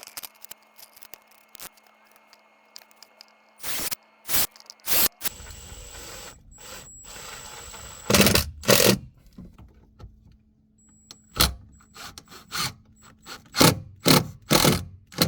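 A cordless drill runs steadily for about three seconds near the middle, with sharp knocks and clunks of handling parts and tools before and after it.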